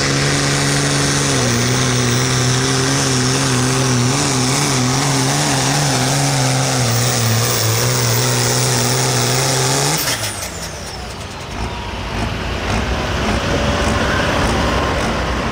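Oliver 1650 pulling tractor's engine running hard under load as it drags the sled. Its pitch drops about a second in and wavers, then the engine sound falls away sharply about ten seconds in.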